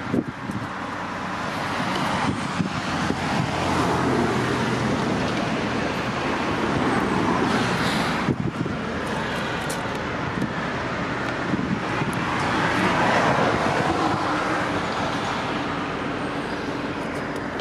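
Road traffic going past, a steady hiss of tyres and engines that swells and fades in slow waves as vehicles pass.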